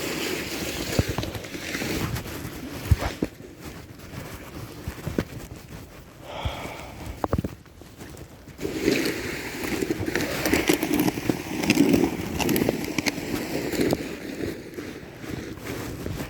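Snow shovel scraping along pavement and pushing fresh snow in repeated strokes, with a few sharp knocks of the blade. There is a louder, denser stretch of scraping about nine seconds in.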